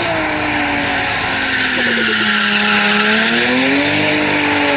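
A drift car sliding sideways through a corner with its engine held high in the revs. The engine pitch dips about two seconds in and climbs again near the end, over continuous screeching of spinning, smoking rear tires.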